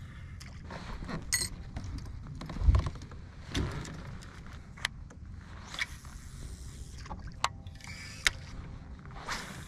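Handling noises aboard a fishing kayak on the water: scattered small clicks and taps, a few short hissing swishes, and one heavy low thump a little under three seconds in.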